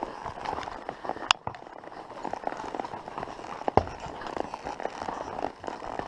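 Horse's hooves clopping on a rocky dirt trail, an irregular run of knocks and clicks, with a sharp click a little over a second in and the loudest knock near the four-second mark.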